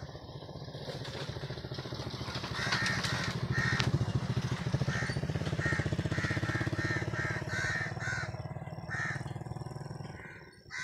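Crows cawing over and over over the steady drone of a small engine going by. The engine grows louder a couple of seconds in and fades away near the end.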